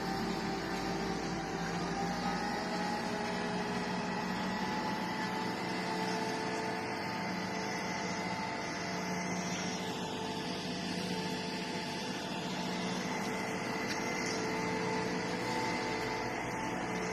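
Heavy machinery running steadily: a constant drone with several whining tones over it, one of which rises slightly in pitch during the first few seconds.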